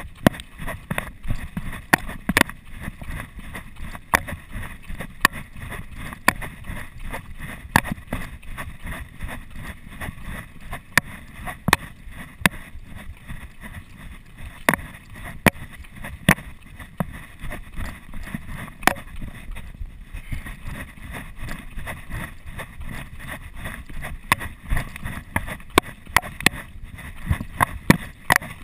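Running footsteps on a dirt and gravel trail heard through a bouncing chest-mounted camera: sharp footfalls at about two to three a second over a steady low rumble of jostling and wind.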